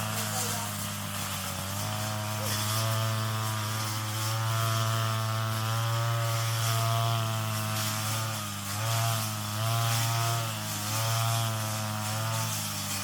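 Brush cutter engine running at high speed, a steady buzzing note whose pitch dips and picks up again a few times in the second half.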